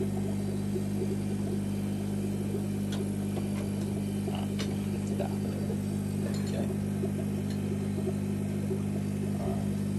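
Steady low hum of the fish room's air pump, which drives the tanks' sponge filters, with a few faint ticks over it.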